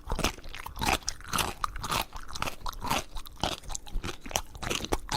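Crunchy food being chewed, with quick irregular crunches several times a second.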